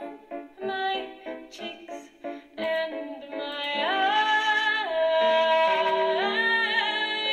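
Music: a run of short, quick staccato notes, then a long held melody note that slides up about halfway through and wavers near the end.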